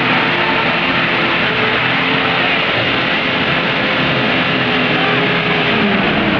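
Off-road 4x4's engine running steadily under heavy load as the car struggles to climb a slope.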